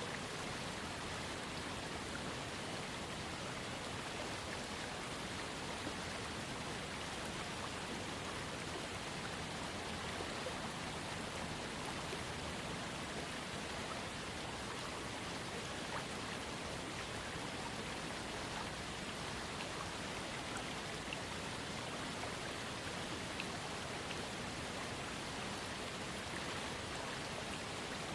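Small waterfall on a trickling creek: water falling and splashing in a steady, even rush, with faint droplet ticks.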